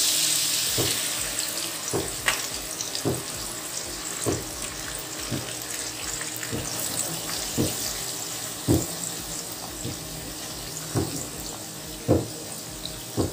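Cornflour-coated onion slices deep-frying in hot ghee: a loud sizzle as the onions hit the fat, easing off gradually, with short pops about once a second.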